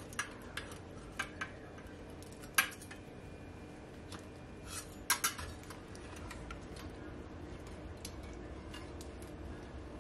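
A metal spatula clinking and scraping against a wire oven rack and baking tray while baked fish are turned over. There are a few sharp metallic clicks in the first half, the loudest about two and a half seconds in, then only faint small clicks.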